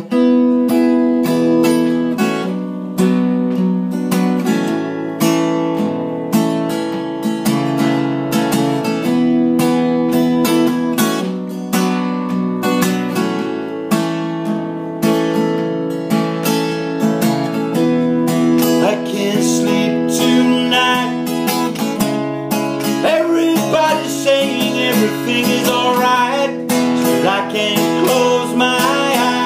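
Acoustic guitar strumming a steady chord pattern, the intro of an acoustic song cover.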